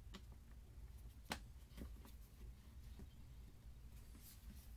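Near silence with a few faint plastic clicks and taps from hands seating the clamshell cover on a Bosch router's motor housing, the clearest about a second in.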